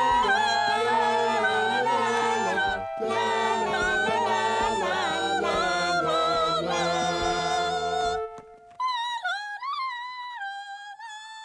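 Several cartoon characters singing a song together over instrumental backing. About eight seconds in the ensemble stops and a single high voice carries on alone, wavering in pitch.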